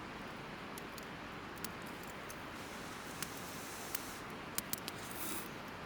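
Campfire crackling: a handful of sharp, irregular pops over a steady low hiss, with a brief rushing flare near the end.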